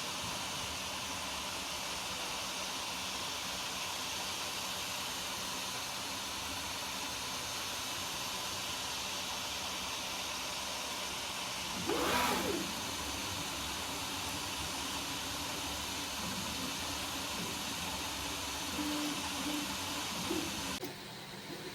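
3D printer running with its cooling fans giving a steady hiss. About halfway through there is a short sound that rises and falls in pitch, and the hiss drops off suddenly about a second before the end.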